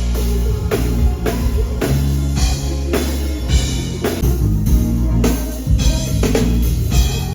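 Band music: drum kit, bass and guitar playing with a steady beat, drum hits about twice a second.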